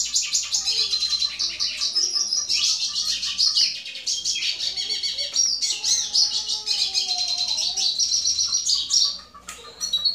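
Male pintassilgo tarin (a siskin) singing a long, fast twittering song of high chirps and trills as courtship song to a female Belgian canary. The song breaks off about nine seconds in, leaving a few scattered notes.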